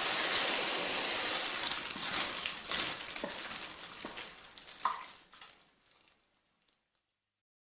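Water sprinkling and splashing onto plants, a steady hiss with scattered drips. It thins out from about four seconds in as the flow stops, leaving a few last drips before silence.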